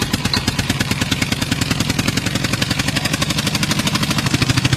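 Rapid engine-like pulsing, about a dozen even pulses a second over a low hum, as the backing track's intro begins for the dance.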